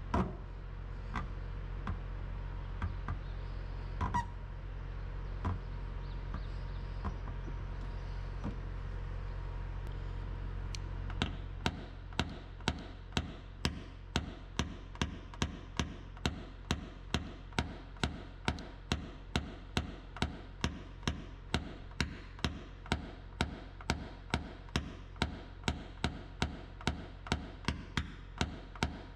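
Hammer tapping a paintless-dent-repair knockdown punch against a car body panel, knocking down high spots around the dent. A few scattered taps at first, then, from about eleven seconds in, a steady run of light, sharp taps about two a second, over a steady low hum.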